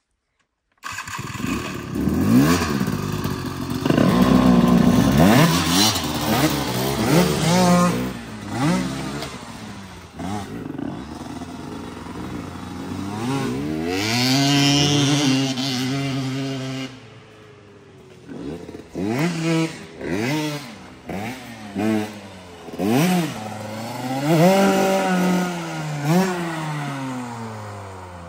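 Dirt bike engine being ridden along a trail, its pitch climbing and dropping again and again with the throttle. About two-thirds through it settles lower, with a string of short throttle blips.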